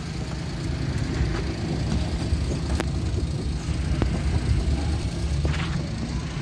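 Car engine running with a steady low rumble, heard from inside the cabin, with a few short clicks.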